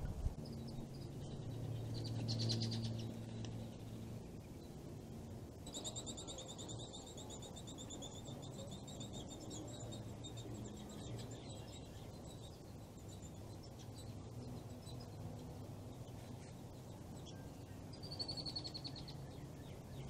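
Wild songbirds calling outdoors: a rapid high trill lasting about three seconds, with shorter high calls near the start and near the end, over a low steady background hum.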